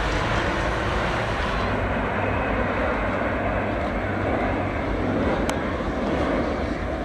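Steady rushing jet noise from the Snowbirds' formation of CT-114 Tutor jets passing overhead.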